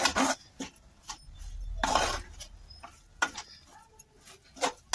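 Metal spatula scraping and stirring a thick, crumbly coconut-and-khoya barfi mixture around a metal pan, in irregular strokes with one longer scrape near the middle.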